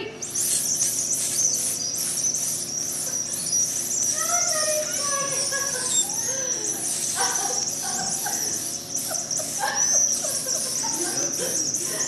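Several candy whistles blown together: a shrill, steady high whistle with rapid chirping over it that goes on without a break.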